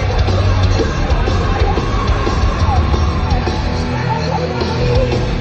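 Live heavy metal band playing loud through an arena PA, with yelled vocals, heard from inside a moshing crowd.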